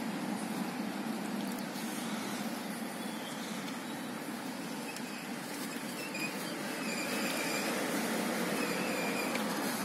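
Road traffic going by: a box truck passes, then a heavy lorry approaches and its noise builds over the last few seconds, with a faint high squeal.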